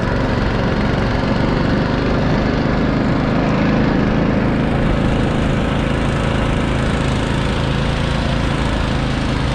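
Small single-cylinder engine of a motosobaka (motorized snow tug) running steadily under load while riding, with a constant low hum and no change in pitch.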